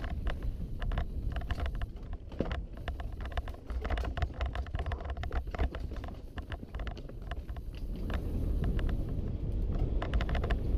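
Wind rumbling on a helmet-mounted action camera's microphone during a fast mountain-bike descent, with many sharp clicks, knocks and rattles from the Specialized Enduro full-suspension bike as its tyres hit roots and rock.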